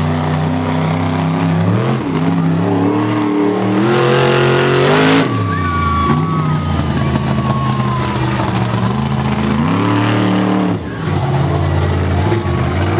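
Monster truck engine revving hard: its pitch climbs in steps to a peak about five seconds in and drops sharply as the throttle comes off, then rises again and falls away near the end. A thin high whine slides down just after the first drop.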